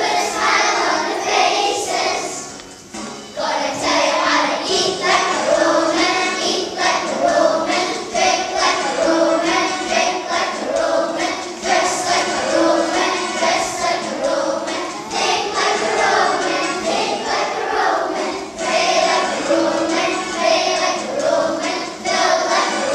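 A class of young children performing a tune together in unison, in held notes that move in steps, with a brief break about three seconds in.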